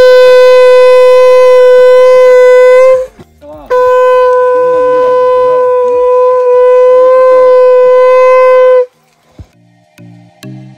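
Conch shell (shankh) blown in two long, steady, horn-like blasts, the first ending about three seconds in and the second lasting about five seconds after a short pause. Faint background music comes in near the end.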